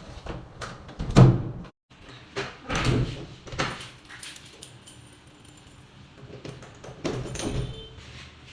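Door lock and door being worked: a series of sharp metallic clicks and knocks, the loudest about a second in, as the fitted lock's latch and handle are operated.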